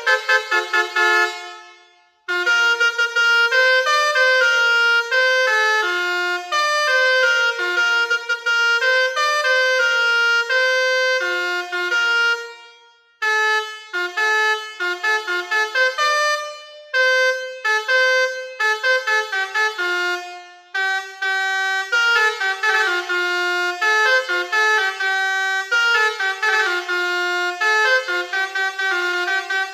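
Basuri V4 21-tone air horn playing telolet bus-horn melodies: a run of horn notes stepping up and down in pitch, with brief breaks about two seconds in and around the middle.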